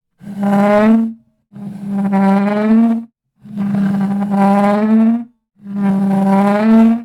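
Water bottle dragged across a wooden desk, squealing in a steady, violin-like pitched tone: four long strokes, each lasting one to two seconds with short gaps between them and a slight rise in pitch at the end of each.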